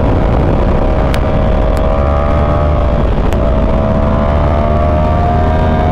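A Yamaha YZF-R1's 998cc crossplane inline-four engine running under way, its pitch rising slowly with a brief break about three seconds in. A steady low rush runs underneath.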